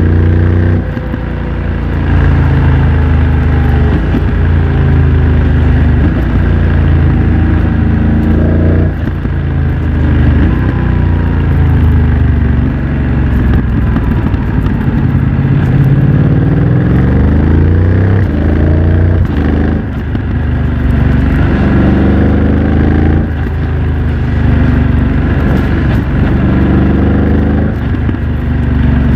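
BMW F900 XR's parallel-twin engine through a MIVV X-M1 aftermarket exhaust, under way. Its pitch climbs and drops back again and again as the bike accelerates and changes gear.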